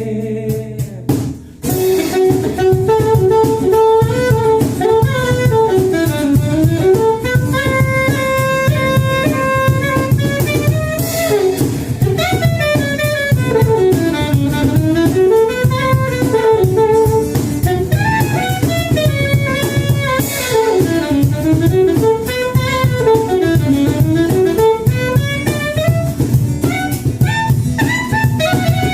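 Instrumental break of a pop song played by a small band: a saxophone lead melody winding up and down over drum kit, entering after a brief drop in the music about a second and a half in.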